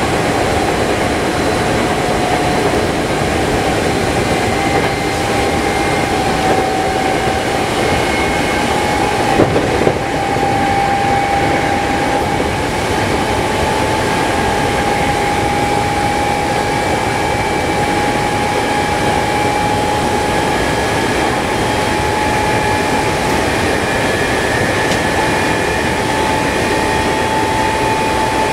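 Hankyu electric train running, heard from inside the front car: a steady rumble of wheels on rail with a motor whine that rises slowly in pitch as the train gains speed. A single sharp clack about ten seconds in.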